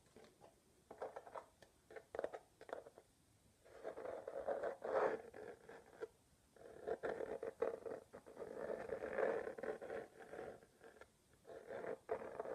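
Close-miked ASMR tapping: rapid, irregular small taps and rustles in runs of a few seconds, with brief pauses about three, six and eleven seconds in.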